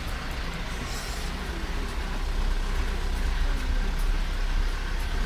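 Car engine and road noise heard from inside the cabin while driving slowly: a steady low rumble.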